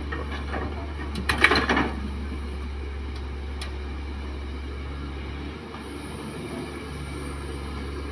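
Kobelco hydraulic excavator's diesel engine running steadily. About a second in, a bucketload of soil and rocks drops into the steel bed of a dump truck with a short burst of clattering knocks.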